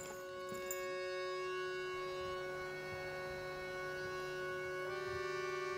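Background music of long held notes forming a steady chord, which shifts to a new chord about five seconds in.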